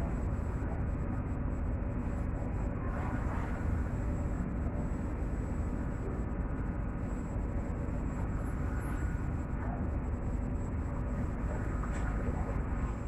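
A Star Ferry under way: the ferry's engine drones steadily, with a continuous rush of wind and water.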